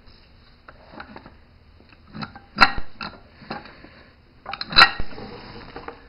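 Steel parts of a tractor disc brake actuator clinking and knocking as they are handled, a few light clicks and two sharper metal clanks about two and a half and five seconds in.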